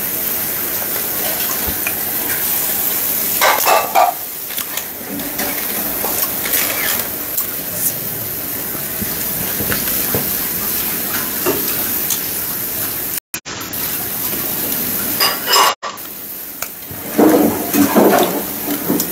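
A steady hiss throughout, with a few brief rustles and mouth sounds as a piece of fruit is peeled and eaten, the loudest near the end.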